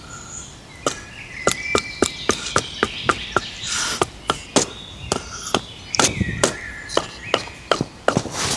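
Repeated sharp blows of a hand tool such as a hatchet or mallet, about two to three strikes a second, with a short pause near the middle.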